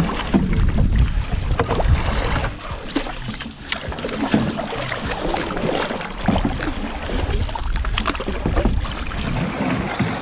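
Canoe being paddled: paddle strokes splashing in the water, with irregular knocks and a heavy rumble of water and air noise.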